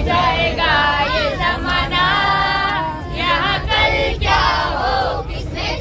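A group of children singing a song together in chorus, over the steady low rumble of the moving bus.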